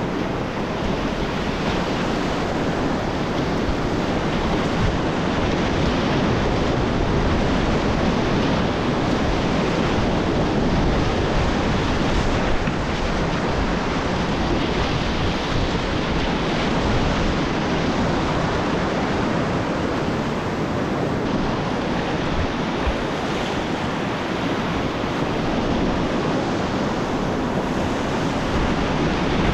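Rushing whitewater of class III–IV river rapids, a steady, even wash of water noise picked up close by a GoPro action camera.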